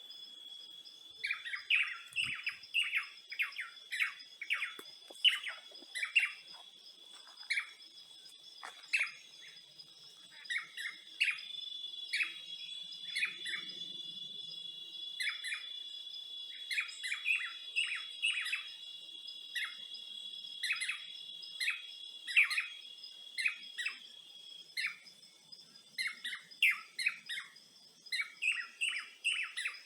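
Birds chirping in many short, sharp calls, often in quick runs, over a steady high-pitched insect drone.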